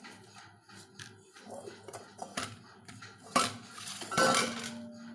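Hand-kneading wheat-flour dough in a stainless steel bowl: soft knocks and scrapes as the dough is pushed against the bowl, then two loud clanks about three and a half and four seconds in that leave the steel bowl ringing.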